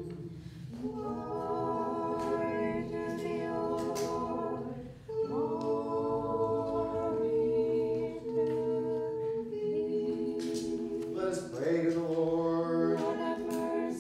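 A small group of voices singing a liturgical hymn of the Orthodox baptism service unaccompanied, in harmony, on long held notes. There is a brief break about five seconds in.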